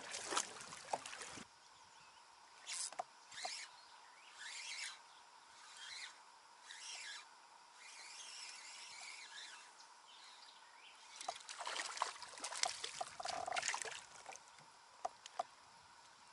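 Kayak paddle dipping into the water in an irregular run of short splashes and drips. About two-thirds of the way through comes a louder stretch of splashing and knocks.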